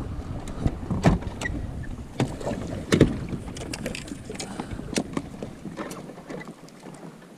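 Scattered knocks and clunks of gear being handled on a bass boat's deck and bow, the loudest about one and three seconds in, over a low rumble of wind and water that drops away about six seconds in.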